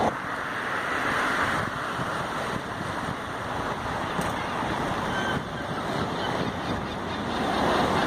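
Small waves washing against a rocky shore, a steady rushing noise that swells and eases, with wind buffeting the microphone.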